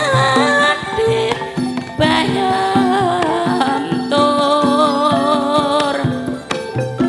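Javanese gamelan music: metal-keyed instruments holding steady tones over regular drum strokes, with a sinden's wavering sung line that breaks off about three seconds in and returns a second later.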